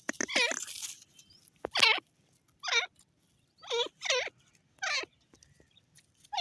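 Grey francolin calling: a series of short repeated call notes, roughly one a second.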